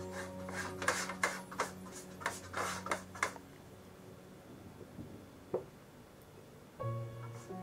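Silicone pastry brush rubbing across the base of a metal cake tin in quick strokes, about three a second, stopping about three seconds in. A light tap follows a little later, and background music comes back near the end.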